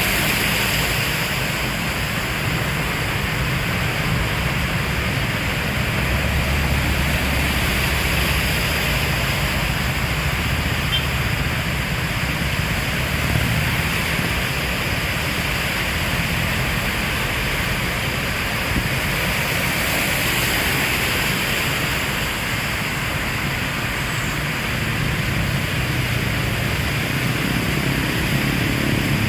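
Heavy rain falling, a steady even hiss, with a low rumble underneath at times.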